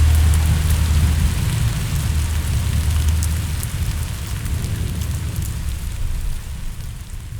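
CNC 3018 router milling with a cyclone vacuum pulling away the chips: a steady rushing hiss over a low hum, with scattered faint ticks. It fades out gradually over the second half.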